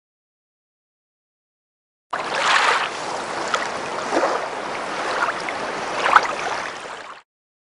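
Rushing-water sound effect for an animated logo reveal. It starts suddenly about two seconds in and cuts off abruptly about five seconds later.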